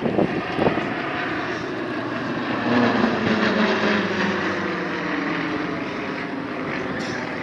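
Engines of a formation of aerobatic display aircraft droning overhead, loudest about three seconds in, with the pitch falling slightly as the planes pass. Wind knocks on the microphone at the start.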